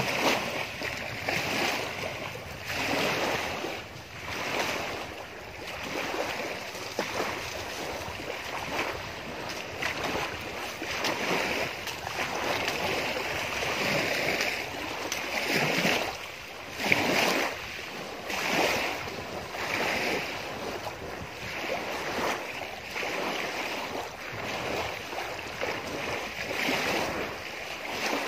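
Small lake waves washing against the shore, the rush of water swelling and falling away every second or two.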